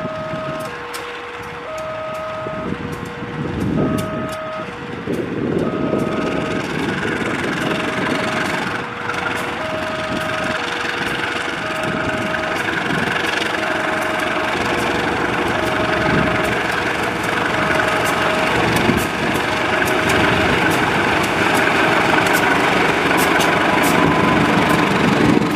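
A CC 201 diesel-electric locomotive's engine running as it draws near with its train, growing louder. Over it an electronic two-tone warning signal beeps, alternating high and low about every 0.7 s.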